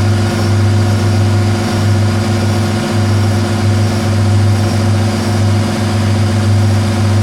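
Metal lathe running at steady speed, its motor and drive giving a constant low hum.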